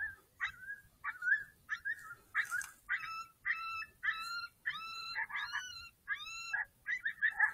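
A rapid series of coyote-style yips and whining calls, about two a second. Short sharp yips at first give way to longer whines that rise and fall in pitch.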